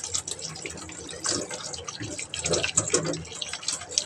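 Tap water running and splashing while a washing-machine filter is rinsed and scrubbed by hand, with many small irregular knocks and splashes.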